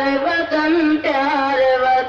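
A single voice sings an Urdu patriotic song in praise of the homeland, with ornamented turns in the melody. About halfway through it settles into a long held note.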